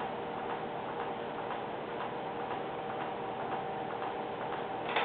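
A clock ticking steadily over faint room hiss and a steady hum.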